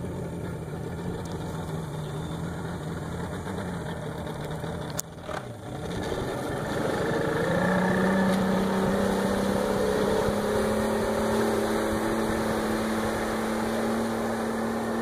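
Outboard motor on a Canestrari Fórmula runabout running at low revs, then throttled up about six seconds in: its pitch rises and it runs louder and steady as the boat gets under way.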